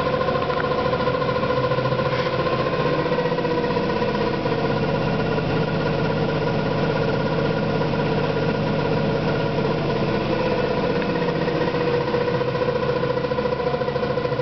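A two-week-old Electrolux washing machine running with a steady, strange droning hum and a fast buzzing flutter underneath, a noise the owner takes for a fault in the new machine.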